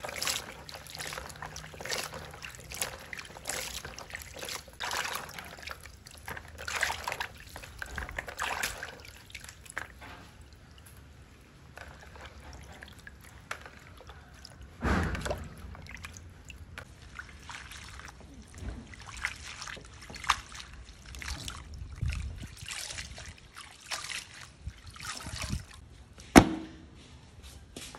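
Hands swishing and rubbing chopped green vegetable stems in a bowl of water, giving irregular splashing and sloshing. Quieter handling noises follow, with one sharp knock near the end.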